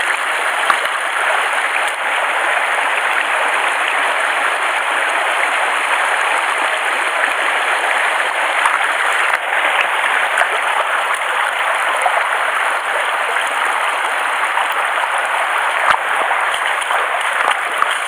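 Shallow mountain stream running over rocks: a steady, unbroken rush of water.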